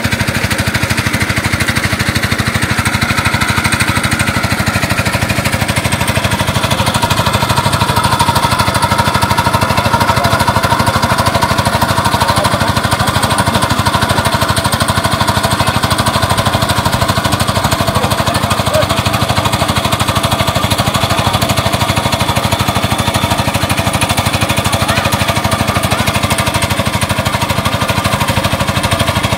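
Small engine of a water pump running at a steady speed with a fast, even pulse, pumping water out of a fish pond.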